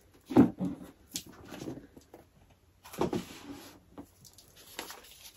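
Hands handling an advent calendar box and its small wrapped packet: a few light knocks and rustles with quiet gaps between, the loudest about half a second in.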